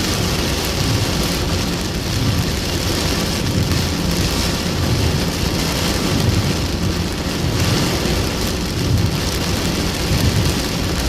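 Heavy rain pouring onto a moving car, a dense steady hiss with a rumbling low end underneath.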